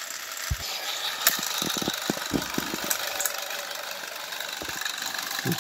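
Battery-powered toy train engines whirring as they push against each other on plastic track, with scattered clicks and knocks of plastic.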